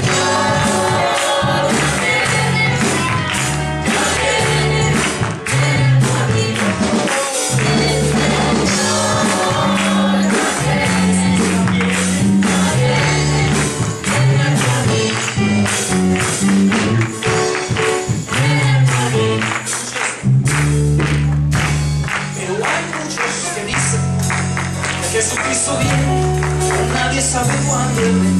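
Church choir of mixed voices singing a worship song over instrumental accompaniment, with a steady bass line and continuous percussion.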